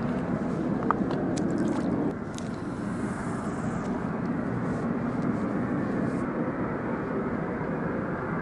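Steady roar of a distant industrial plant, sounding like a jet. A few sharp clicks stand out about one to two seconds in.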